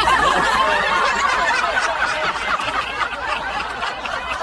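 Several people laughing together, many voices overlapping, strongest in the first couple of seconds.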